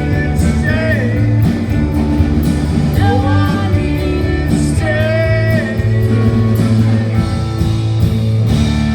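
Rock band playing live: electric guitars, bass and drums, with a voice singing a few drawn-out notes over the band.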